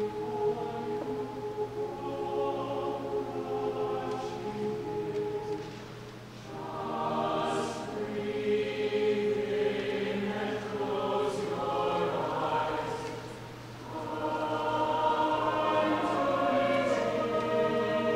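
A choir singing in sustained phrases, with two brief breaths between phrases about six and thirteen seconds in.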